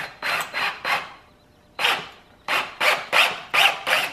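Short rasping strokes of a drill bit cutting metal, about three a second in two runs with a pause of about a second between them, as a hole is opened up in a 4L80e transmission part for a Transgo shift kit.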